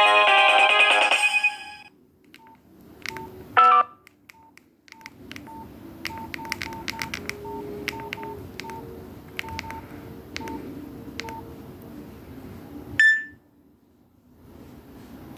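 A Nokia 6131's polyphonic ringtone ends through the phone's small speaker, and a short sliding tone follows about three and a half seconds in. Then come about a dozen short, same-pitch keypad beeps with button clicks, irregularly spaced, as the phone's keys are pressed. A brief higher beep sounds near the end.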